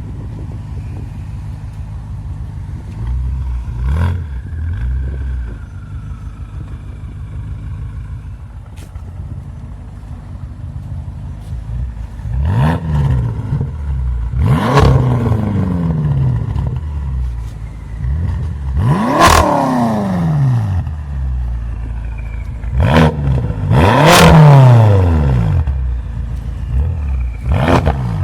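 BMW M6's S63TU twin-turbo V8 with catless downpipes and a Stage 3 DME tune: a low, steady exhaust rumble, then from about halfway a series of about five quick exhaust revs, each rising sharply in pitch and dropping back.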